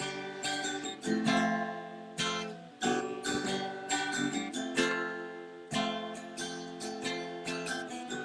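Acoustic guitar strummed and picked in an instrumental break, with a fresh chord struck roughly every half second to second and ringing between strikes.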